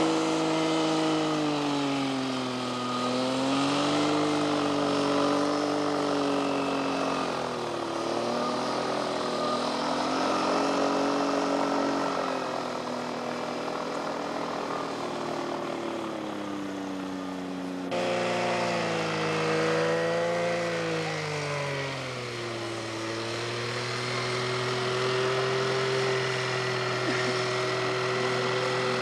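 Engine and pusher propeller of a float-equipped motorised hang glider running at speed as it skims across water. The pitch rises and falls several times and changes abruptly about eighteen seconds in.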